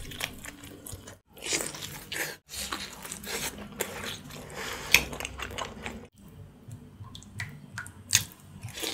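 Close-miked eating sounds: biting and wet chewing of stewed Thai spicy pork bones (leng saep), with meat gnawed off the backbone and a spoonful of the chili-herb topping chewed. The sounds come in a series of short bites and chews, broken by a few abrupt cuts.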